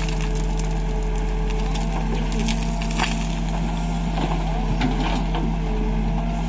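Case 770 backhoe loader's diesel engine running steadily under hydraulic load as the backhoe bucket works through stony soil, with crunching and clattering. In the second half the bucket tips its load into a tractor trolley, with a rattle of falling soil and stones.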